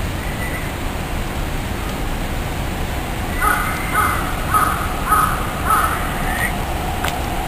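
A crow cawing five times in quick succession, about half a second apart, starting about three and a half seconds in, over a steady low background rumble.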